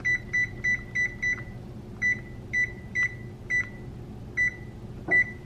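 Oven touch-control panel beeping once per key press as the bake temperature of 300 °F is keyed in to preheat. About eleven short, high beeps: five in quick succession, then six more spaced out unevenly.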